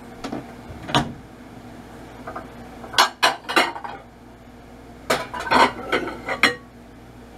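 Dishes and bowls clattering and clinking as a mixing bowl is fetched from the kitchenware: a knock about a second in, then two quick clusters of clinks, one around three seconds and a longer one from about five seconds.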